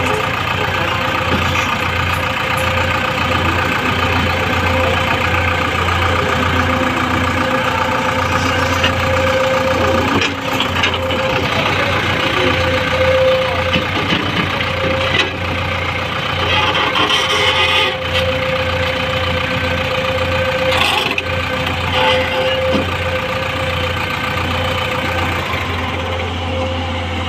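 L&T Komatsu PC200 hydraulic excavator's six-cylinder diesel engine running steadily while the machine digs, with a steady whine over the engine note and a few short knocks from the digging.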